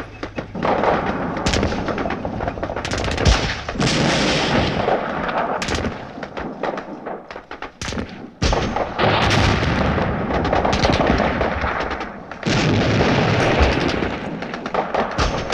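World War II battle sound effect: dense small-arms and machine-gun fire crackling throughout, with several sudden heavy cannon booms and swells of rumbling noise.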